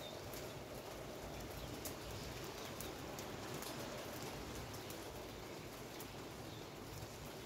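Rain falling steadily, with sharp drop taps scattered through it.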